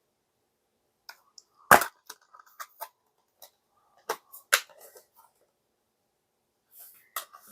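Disc packaging being handled: a run of sharp clicks and knocks, the loudest about two seconds in and two more a little past halfway.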